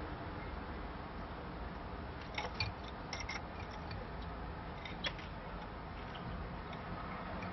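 Irish Fancy canaries in a cage: a few short clicks and brief chirps over a steady background hiss, clustered a couple of seconds in, with one more click about five seconds in.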